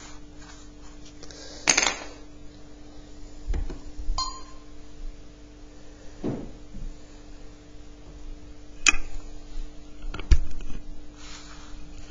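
Desk handling noises: a few scattered knocks and taps as a pencil, sheets of paper and a plastic set square are moved about, one with a brief ringing clink about four seconds in, over a steady faint hum.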